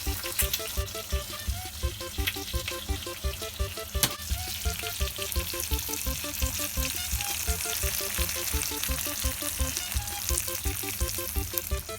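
Thick-cut bacon and eggs sizzling and crackling in a frying pan, with sharp pops of spitting fat. Quiet background music with a steady beat plays underneath.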